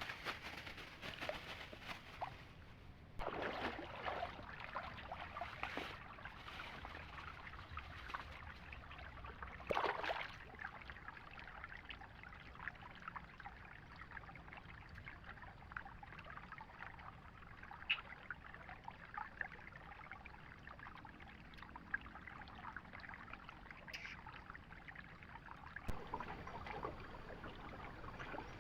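Water trickling and splashing steadily, with a few louder swishes and a couple of sharp ticks.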